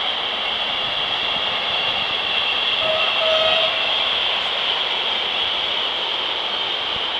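Train passing at speed: a steady, loud rush of wheels on rails, swelling slightly about three seconds in.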